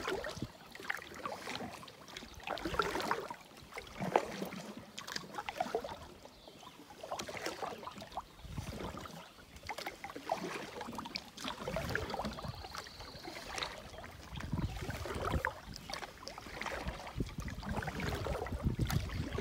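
Canoe paddle strokes on calm water: the paddle dipping, pulling and dripping in uneven splashy strokes every second or two against a small solo pack canoe's hull. A low rumble joins in about twelve seconds in.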